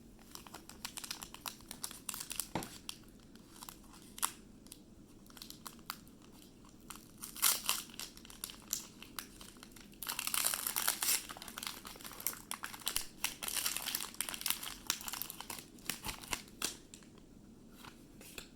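Foil wrapper of a Pokémon TCG booster pack crinkling as it is handled and torn open. The crackling comes in irregular bursts and is busiest from about ten seconds in.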